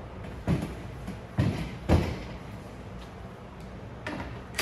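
Dull thuds as a heavy plastic air-operated double-diaphragm pump is turned over and set down on a table: one about half a second in, then two more close together around a second and a half to two seconds in. Right at the end a cordless driver starts on a manifold bolt with a sharp, loud burst.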